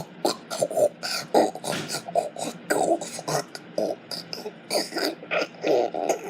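A person making a vocal animal impression of a walrus or pig: a fast run of short, choppy throat-and-mouth noises, several a second.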